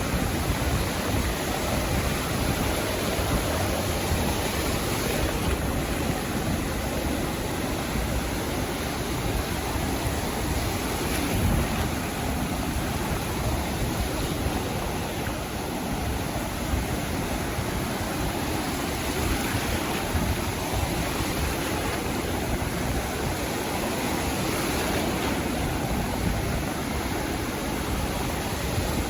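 Sea surf washing onto a beach: a steady, continuous rush of breaking water with no single distinct wave crash standing out.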